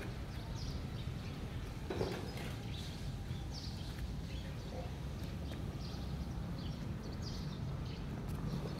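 Outdoor background noise: a steady low rumble with faint, short, high chirps scattered through it, and a single sharp knock about two seconds in.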